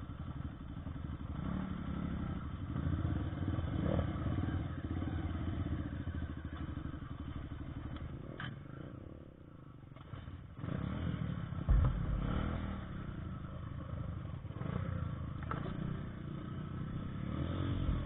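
Motorcycle engine running and revving unevenly as the bike is ridden over a rough trail, easing off briefly about halfway through, with clattering and a loud thump about two-thirds of the way in.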